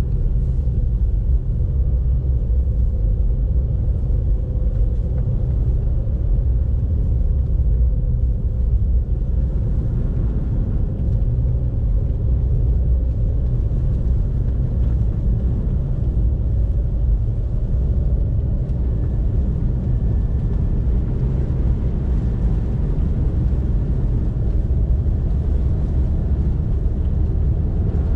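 Car driving at a steady pace: a continuous low rumble of road noise and engine that holds steady throughout.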